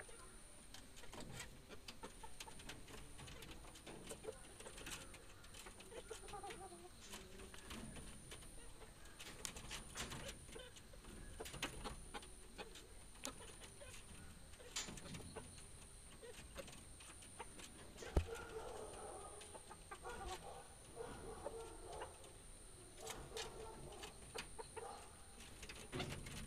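Chickens clucking softly now and then, with scattered light clicks and one sharper knock a little over halfway through.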